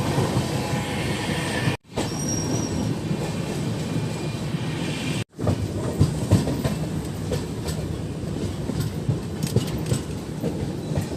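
Train running on rails: a steady rumble with clicking from the wheels. It cuts out abruptly twice, about two and five seconds in.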